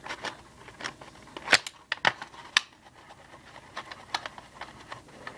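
Makeup containers being handled: scattered light plastic clicks and taps, with two sharper clicks about a second and a half and two and a half seconds in.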